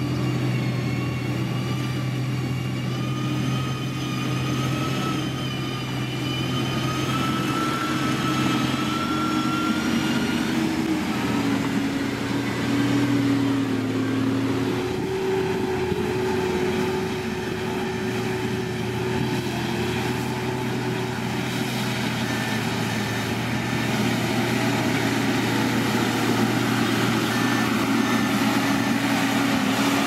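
Diesel engines of a motor grader and Sakai road rollers running steadily as they work, their pitch drifting a little up and down.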